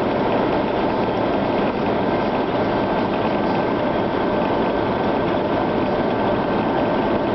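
Military Humvee driving at highway speed, steady engine and road noise heard from inside the cab.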